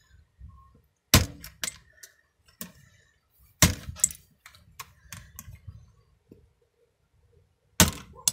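Plastic keycaps being pried and snapped off an old Logitech Internet Keyboard by hand: a string of sharp plastic snaps and clicks, the loudest about a second in, near the middle and near the end, with quieter ticks between.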